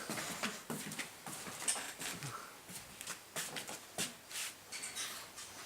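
A man snoring in his sleep, faint and uneven, among small rustles and clicks.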